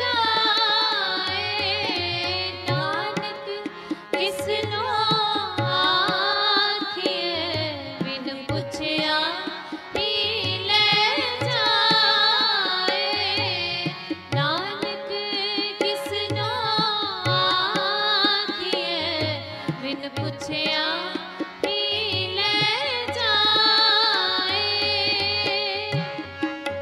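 A voice singing a slow, ornamented melody over tabla and a steady held drone.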